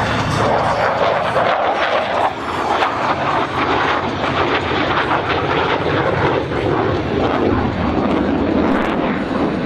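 Jet noise from a MiG-29A fighter's twin RD-33 turbofan engines during a display pass: a loud, continuous roar whose tone shifts about two seconds in.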